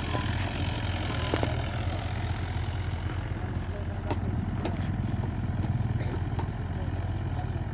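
Excavator's diesel engine running steadily with a pulsing low hum, with a few sharp metallic knocks scattered through.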